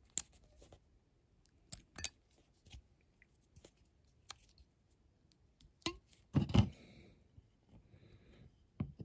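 Small scattered clicks and taps of a craft knife blade and a thin metal plate being handled against a die-cast metal model car body, with a louder soft thump about six and a half seconds in.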